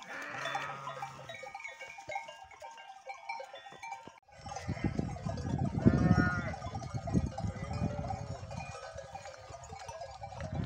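A flock of sheep and goats with neck bells clanking continuously, and several sheep bleating, the loudest about six seconds in.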